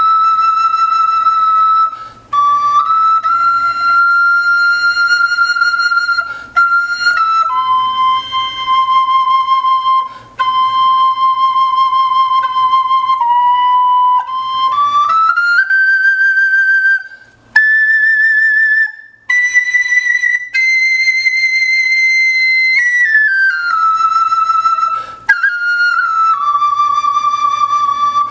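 Wooden svirel, a Russian fipple flute in C major, playing a slow melody of long held notes with a light vibrato, broken by short pauses for breath. The tone is clean, with little air hiss. The tune climbs to its highest notes in the middle and steps back down near the end.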